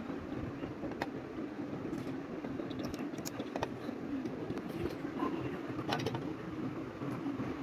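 Plastic building bricks being handled and pressed together, giving a few separate sharp clicks over a steady low background hum.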